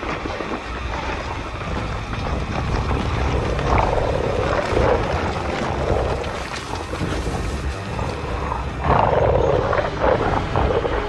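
Film sound effects for an army of jackal-headed warriors: a steady deep rumble with loud creature growls swelling up about four and again about nine seconds in.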